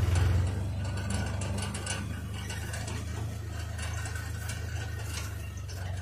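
Side-by-side utility vehicle's engine running with a steady low hum, heard from inside the cab, with a constant patter of small rattles and clicks from the cab and frame.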